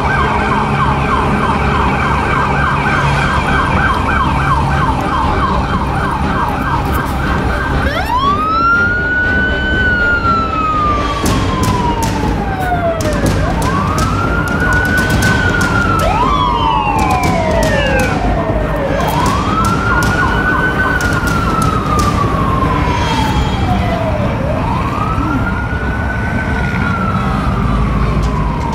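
Emergency vehicle sirens: a fast yelp for about the first eight seconds, then a slow wail that rises quickly and falls away over about five seconds, four times over. A second siren overlaps it once in the middle, over steady street traffic.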